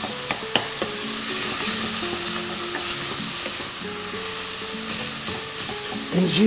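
Minced meat frying in a stainless steel pot, sizzling steadily as it is stirred with a wooden spoon, with a few knocks of the spoon against the pot in the first second.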